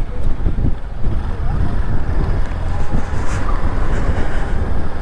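Wind buffeting the microphone on a moving motorcycle: a dense, steady rumble.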